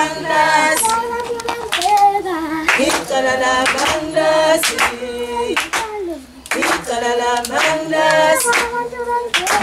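Junior choir singing a song in unison, with hand claps.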